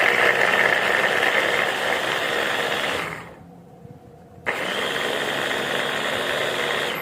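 Dessini Italy RS-1686 capsule cutter electric chopper running in two steady bursts of about three seconds each, stopping about three seconds in and starting again about a second and a half later: its motor and blades being pulsed on and off.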